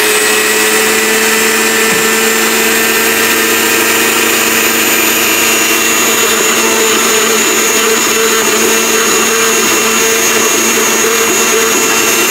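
Electric countertop blender running steadily at speed, grinding dry sesame seeds to a fine powder.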